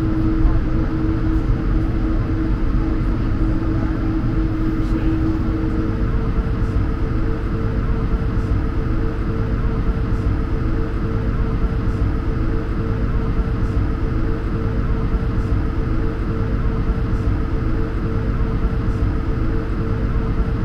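Steady cabin noise inside an Airbus A220-100 taxiing out, its Pratt & Whitney PW1500G geared turbofans at low thrust: a low rumble with two steady hums, the lower of which stops about six seconds in.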